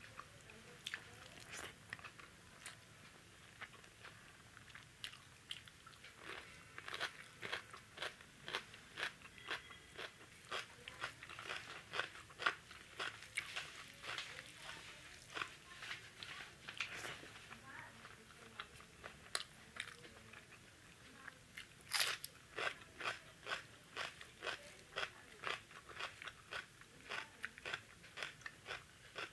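A person chewing crunchy food with mouth close to the microphone: many short, sharp crunches, coming thickly for about ten seconds from around six seconds in, and again in a dense run from about 22 seconds on.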